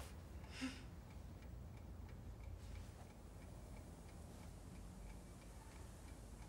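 A clock ticking faintly, with quick, even ticks, over a low room hum; a short rustle about half a second in.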